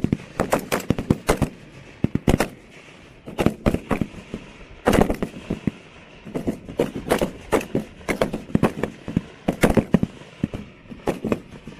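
Rifle fire from M4-type carbines on a firing line: many sharp shots in quick strings of several, with pauses of about a second between strings.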